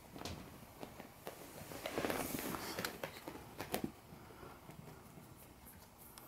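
Beagle puppies playing on carpet: faint rustling and scuffling with scattered light clicks and taps, busiest about two to three seconds in and quieter near the end.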